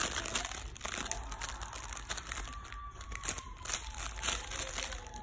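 Soft crinkling and rustling with scattered small clicks, as a small dog holds and mouths a plush toy.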